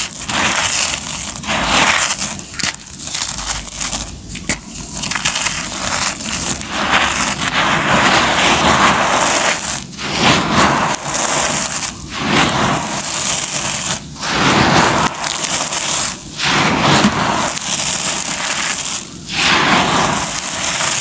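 Dry crushed concrete grit and dust crunching and rustling as bare hands dig into the pile, scoop it up and let it pour back down. It comes in repeated handfuls with short breaks between them.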